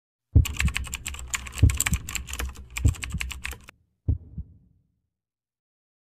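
Rapid clicking like fast keyboard typing, mixed with several deep thuds, cutting off a little before four seconds in. Two more thuds follow just after four seconds, then silence.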